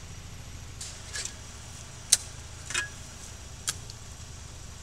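A handful of short, sharp metallic clicks and clinks as a tow strap's fittings are fastened to the stuck UAZ Patriot's front tow point; the loudest click comes about two seconds in. A vehicle engine idles steadily underneath.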